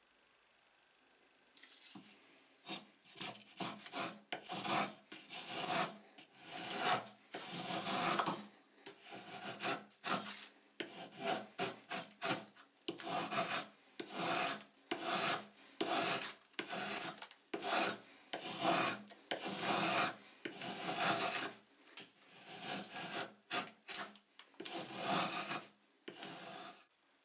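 Antique drawknife being pulled in repeated strokes across a block of wood, each stroke a dry scrape as the blade peels off a curled shaving. The strokes start about two seconds in and come at roughly one a second until just before the end.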